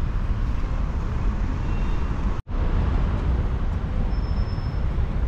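Steady city street traffic noise with a low rumble, cut off for an instant about two and a half seconds in.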